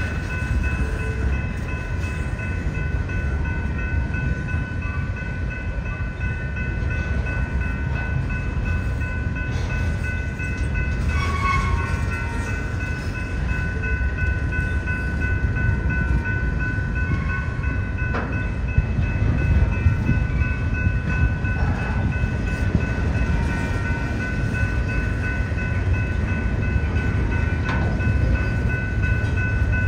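Long freight train of double-deck cars rolling past: a steady rumble of wheels on rail with a continuous high-pitched whine held over it.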